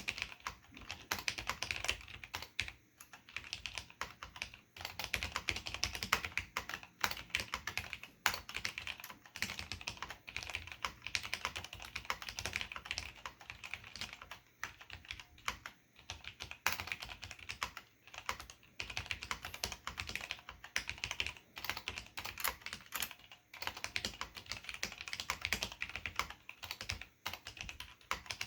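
Continuous typing on a Desko BMOC 4013 UP SAB mechanical keyboard with Cherry MX Black linear switches and ABS pad-printed keycaps: a fast, irregular run of key clicks and bottoming-out clacks with brief pauses between bursts.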